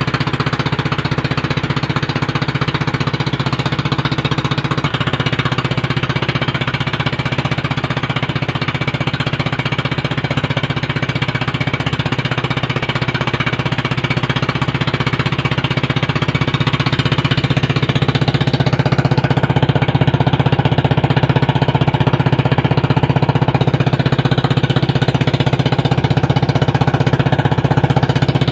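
Engine of a motorized outrigger boat (bangka) running steadily under way, a rapid, rattling pulse. It grows a little louder a bit past the middle.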